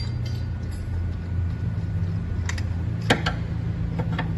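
A few sharp metallic clinks of hand tools working the accessory-belt tensioner off a Renault Duster engine, over a steady low hum.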